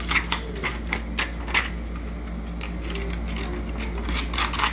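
Scattered light clicks and taps of hands handling a subwoofer and its small parts, a few near the start and a cluster near the end, over a steady low hum.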